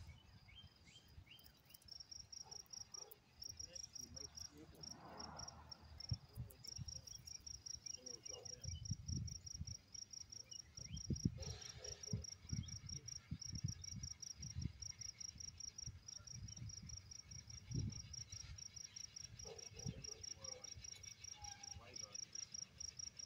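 An insect chirping in fast, even, high-pitched pulses that keep on without a break, faint, with irregular low rumbles and thumps underneath.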